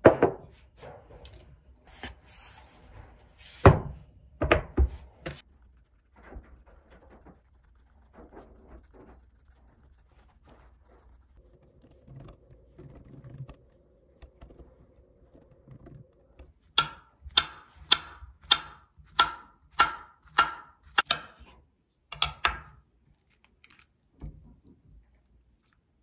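A ceramic cup knocked down onto a desk, with a few more knocks soon after; later, laptop keyboard typing: a run of crisp, evenly spaced key clicks, about two a second.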